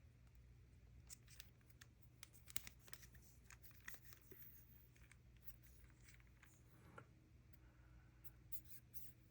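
Near silence: room tone with a low hum and faint, scattered clicks and taps of hands handling objects, the sharpest about two and a half seconds in.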